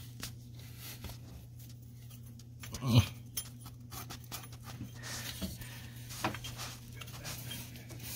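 A hand groping among engine parts beside the turbo pedestal: faint clicks and rustles of handling over a steady low hum, with one short louder sound about three seconds in.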